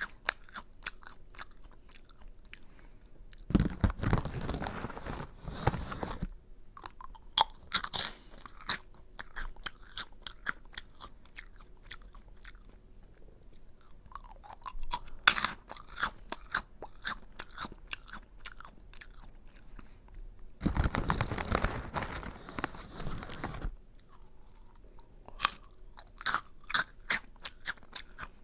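Close-miked crunching and chewing of Aji Curry, a crunchy curry-flavoured snack: clusters of sharp crunches, with two longer stretches of denser, steadier crunching noise about four seconds in and again past twenty seconds.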